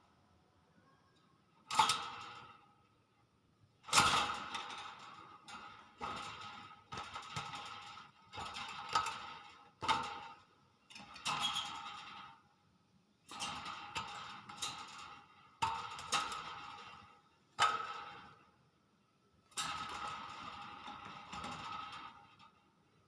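Hill myna (beo) imitating a cough: a series of sudden, noisy cough-like bursts every one to two seconds, each fading out quickly.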